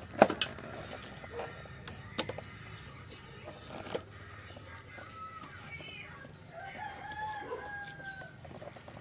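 Sharp metal clicks and taps of a screwdriver and pliers on a motorcycle battery's terminals, the loudest right at the start. From about five seconds in, a rooster clucks and then crows, one call held for nearly two seconds near the end.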